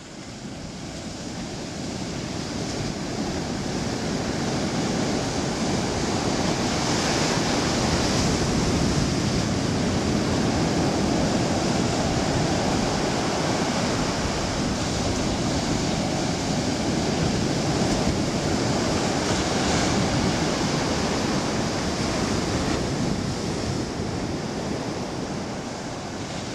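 Ocean surf breaking and washing up a sandy beach: a steady rushing wash of waves that fades in over the first few seconds, swells now and then as waves break, and tapers off near the end.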